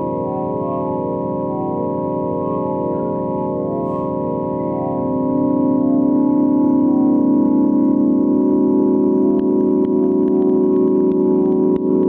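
Electronic 'space sound' drone of many held, organ-like tones, some of them pulsing softly; it swells louder about five to six seconds in.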